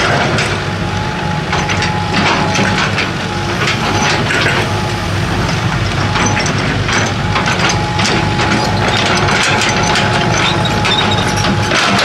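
Excavator at work: its diesel engine running steadily with a faint high whine, over repeated cracks and clatter of rock and soil.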